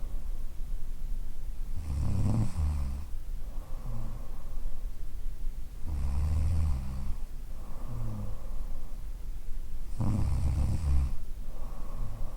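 A woman snoring in her sleep: a loud, rough, low snore about every four seconds, three times, each followed by a softer, shorter breath sound.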